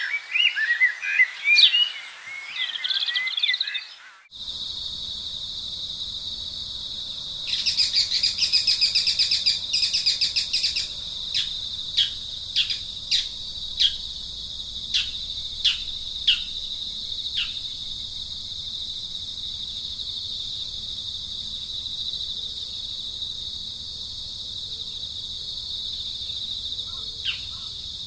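Outdoor ambience of birds and insects. Birds chirp for the first few seconds; after an abrupt cut, a steady high-pitched insect drone sets in, with a fast trill and then a string of short falling bird chirps in the middle.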